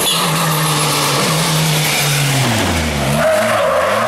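Citroën C3 WRC rally car's turbocharged 1.6-litre four-cylinder engine holding a steady high note, then dropping in pitch under braking and rising and falling quickly as the car slides through a tarmac hairpin. Tyres squeal through the slide near the end.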